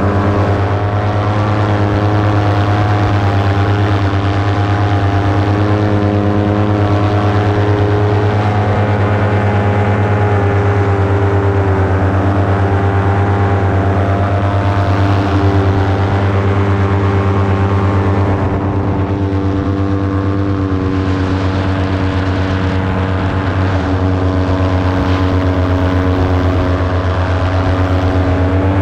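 Paramotor engine and propeller running steadily in flight, holding an even pitch; near the end the pitch starts to climb as the throttle opens.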